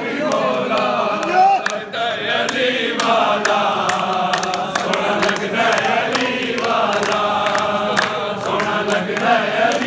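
A crowd of men chanting a devotional song together, many voices at once, with scattered hand claps.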